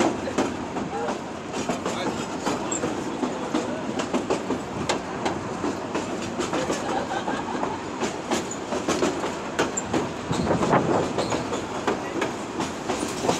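Passenger coach riding over the track, heard from aboard: a steady rumble of wheels on rail with an irregular clatter of sharp clicks from the rail joints.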